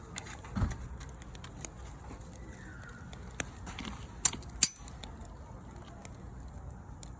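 Burning firewood crackling, with sharp pops at irregular intervals, the two loudest close together a little after four seconds in.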